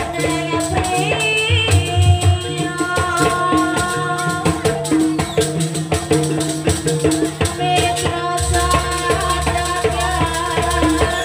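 Live Javanese jaranan ensemble music: a steady beat of drums under sustained pitched notes and a melodic line, with dense rapid percussive clicks throughout.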